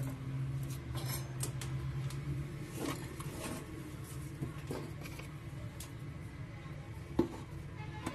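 Scattered light clicks and taps of soldering tools against the phone's circuit board while a new charging socket's pins are soldered, over a low steady hum that fades out about two and a half seconds in.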